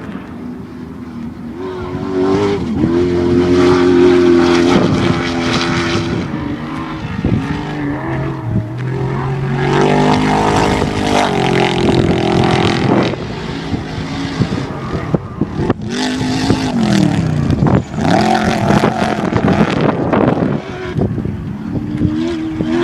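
Off-road race vehicles' engines revving and running past, their pitch rising and falling; one drops in pitch as it passes, about three-quarters of the way through.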